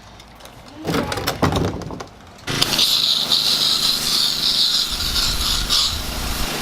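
Honda lawn mower engine being pull-started: the starter pull turns it over with a clatter, and about two and a half seconds in it catches and runs steadily. It is starting now that the overfilled crankcase oil has been drained to the proper level.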